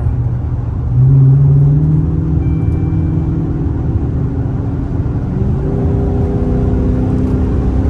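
Straight-piped V8 exhaust of a Chrysler 300, heard from inside the cabin while accelerating on the highway; its pitch and loudness step up about a second in and the tone changes again around five and a half seconds in. Resonator mufflers are fitted, and the highway drone is much reduced: way quieter.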